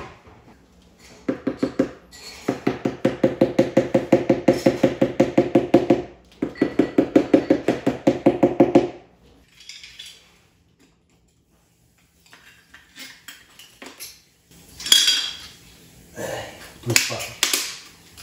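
A loud, fast pulsing buzz at one steady pitch lasts about eight seconds and stops. After a pause come scattered sharp clinks, knocks and scrapes of ceramic floor tiles and metal tools being handled while tiles are set in mortar.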